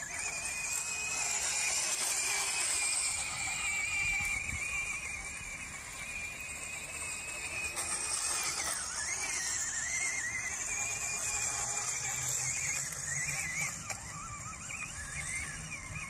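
High-pitched whine from the small electric drive motor and gears of a Bwine Q111 RC tracked crawler as it drives. The pitch holds fairly steady, dips sharply about halfway through and wavers up and down near the end as the throttle changes, over a steady high hiss.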